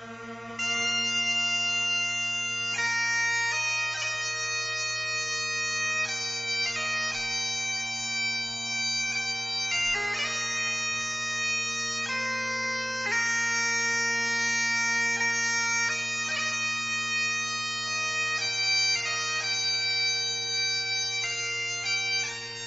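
Bagpipes playing a slow melody of held notes over steady, unbroken drones.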